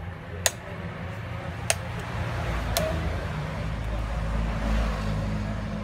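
Three sharp chops about a second apart, a machete striking into a coconut, then a low vehicle engine rumble building up.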